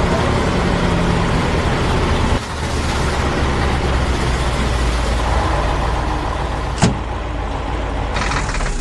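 Heavy vehicle engine running steadily, loud with a strong low rumble, with a sharp click about seven seconds in.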